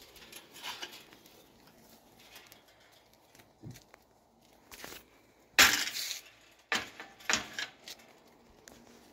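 Walking sounds and rustling as the phone is carried along a garden path: a few short, sharp noises, the loudest a little past halfway and two more soon after, with quiet stretches between.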